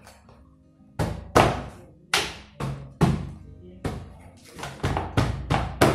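Hand striking a plastic almirah back panel to seat it in the base's slots: over a dozen sharp knocks at irregular spacing, starting about a second in. Faint background music underneath.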